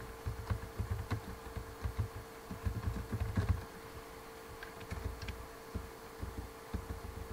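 Typing on a computer keyboard, heard as irregular dull thuds with a few faint clicks, over a steady hum.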